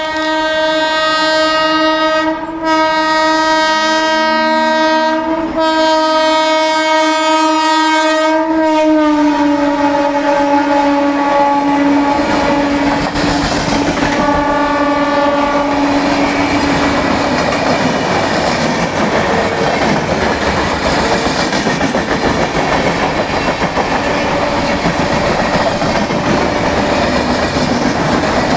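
WAP-4 electric locomotive's twin-tone horn sounding loud and long, broken twice, then dropping in pitch about nine seconds in and fading out by about seventeen seconds. After it, the train's coaches run past with steady loud wheel-on-rail noise.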